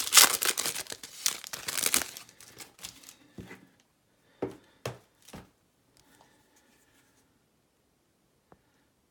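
A card box or pack wrapper being crinkled and torn open, loud and dense for about the first two seconds and then dying away. This is followed by three soft handling knocks and then near quiet.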